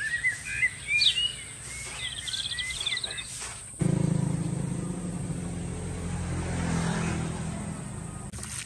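Birds chirping over a steady high-pitched tone; about four seconds in, the sound cuts abruptly to a louder low engine-like hum that swells and then fades near the end.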